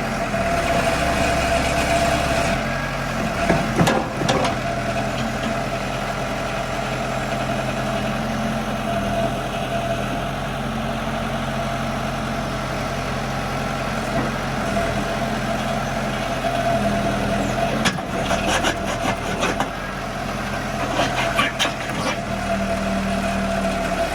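Case 590 Super M backhoe's diesel engine running steadily at idle, with a few sharp knocks or clanks about four seconds in and again in a cluster from about eighteen to twenty-two seconds in.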